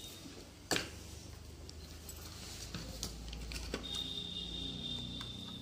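Quiet room tone with a low hum, broken by one sharp click about a second in and a couple of fainter ticks later; a faint steady high whine comes in over the last two seconds.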